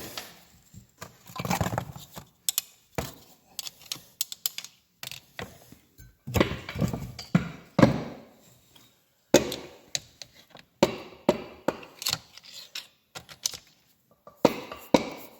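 Hand tools and metal engine parts clinking and knocking during piston work on an engine block: an irregular string of sharp taps and clicks, some in quick clusters.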